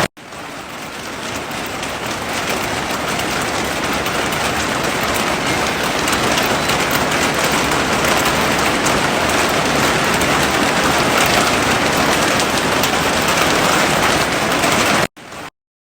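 Heavy rain falling as a steady, dense hiss. It cuts out briefly at the start and swells back in over a couple of seconds, then drops abruptly to silence near the end.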